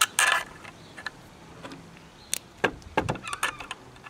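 A loud clatter of knocks right at the start, then scattered clicks from about two to three and a half seconds in: a screw, screwdriver and metal rifle parts handled against an air rifle's beech stock and trigger guard while the rear retaining screw is fitted.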